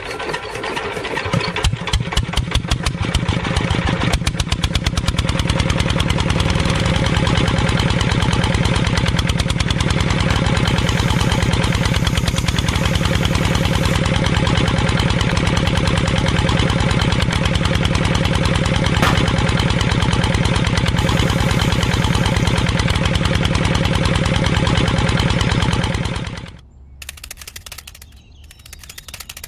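Miniature single-cylinder diesel engine running with a rapid, even pulsing beat, picking up speed over the first few seconds as it starts, then running steadily while belt-driving a small rice mill. It cuts off suddenly about 26 seconds in.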